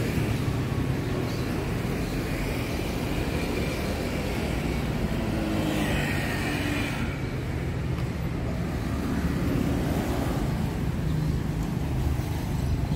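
Road traffic going by: a steady rumble of passing cars and motorbikes, with one vehicle passing more loudly about six seconds in.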